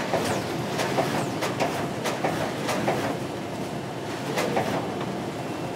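Booklet-making line (StitchLiner Mark V with trimmer and stacker) running: a steady mechanical clatter broken by irregular sharp clicks.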